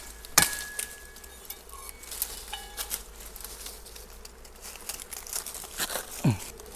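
Sharp snaps and crackles of thorny branches and twigs being cut and broken, the loudest crack about half a second in, over faint buzzing of dwarf honeybees.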